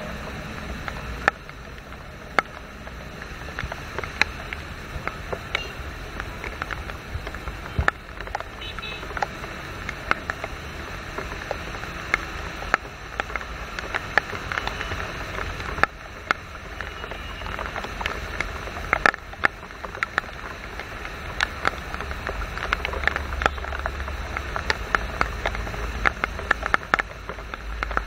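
Heavy-rain traffic on a wet multi-lane road: a steady wash of tyre hiss and engines from passing motorcycles and cars, with a low rumble. Frequent irregular sharp ticks of raindrops strike close to the microphone.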